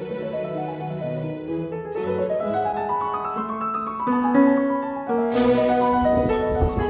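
Background piano music, a slow melodic line of single notes over held chords. About five seconds in, a noisy rustling layer joins underneath the music.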